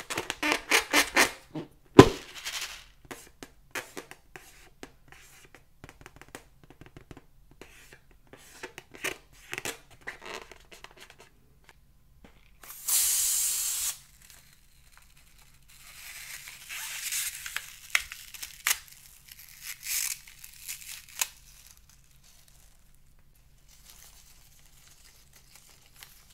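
A slime-filled latex balloon squeaking as hands rub and squeeze it, with a sharp knock about two seconds in. Later a hiss of about a second as scissors cut into the rubber, then squishing and crinkling as the slime and beads are squeezed out into the dish.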